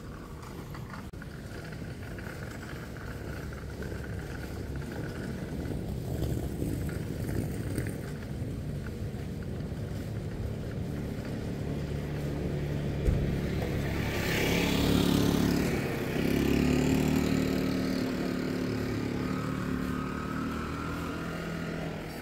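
Street rumble of traffic, with a motor vehicle passing close by about fourteen seconds in: its engine note swells for several seconds and then fades. A short low thump comes just before it.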